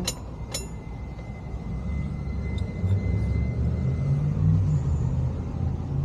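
A low, steady rumble that grows louder a couple of seconds in, with two sharp clicks about half a second apart right at the start.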